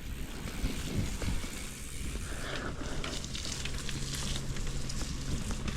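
Mountain bike rolling over a wet, muddy dirt trail: a steady crackling hiss from the tyres, with small rattles from the bike.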